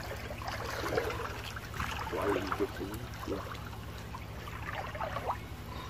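Shallow ditch water sloshing and trickling around the legs of a person wading, in uneven splashes.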